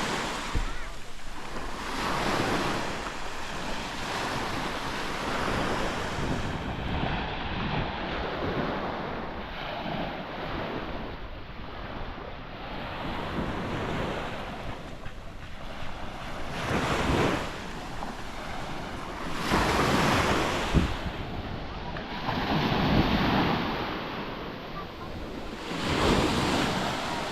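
Surf washing onto a sandy beach, each wave swelling up and easing off every few seconds, with wind buffeting the microphone.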